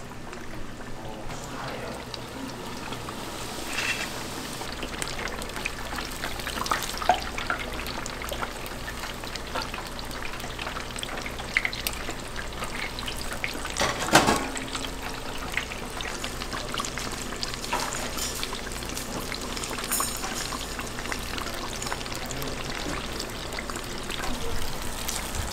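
Kitchen sounds of pork cutlets being prepared: a steady hiss of liquid and cooking, scattered with small crackles and clicks. There is one louder knock about fourteen seconds in.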